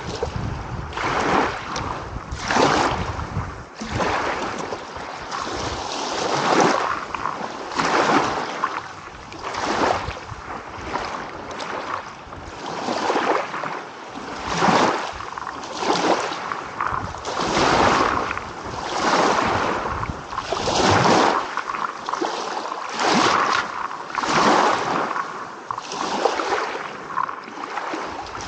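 Small waves washing in one after another, a surge of surf about every second and a half.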